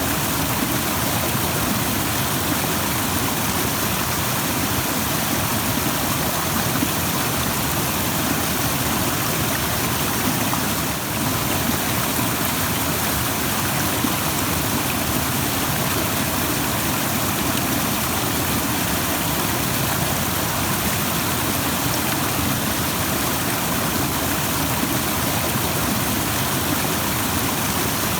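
Rushing stream: a steady, even rush of flowing water.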